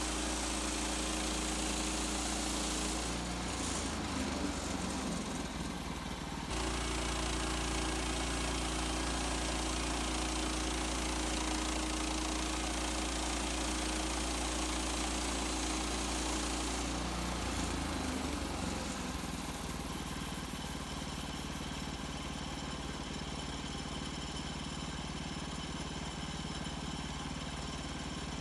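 Gas engine of an HM130 Max portable bandsaw sawmill running steadily. Its note changes about three seconds in, picks back up a few seconds later, and settles slightly quieter after about seventeen seconds.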